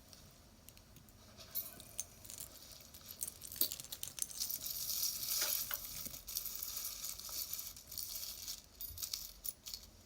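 Small pieces of metal jewelry clinking and rattling against each other as they are rummaged through by hand, with scattered sharp clicks and a rustle.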